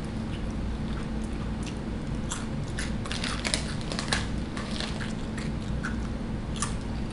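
A person chewing crunchy SunChips, a run of short crisp crackles that are busiest in the middle, with the chip bag crinkling in hand.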